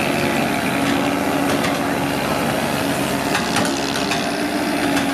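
Caterpillar CAT 320D excavator's diesel engine running steadily at working revs, with a few scattered clicks and scrapes as it digs and loads soil.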